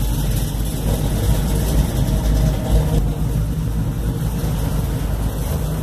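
Truck engine idling steadily, a low even rumble heard from inside the cab.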